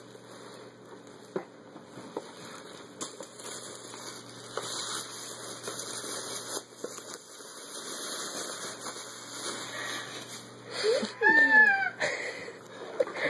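Thin plastic shopping bag rustling and crinkling as a toddler pulls a boxed plush toy out of it, with scattered light knocks. Near the end a voice cries out briefly, its pitch gliding up and down.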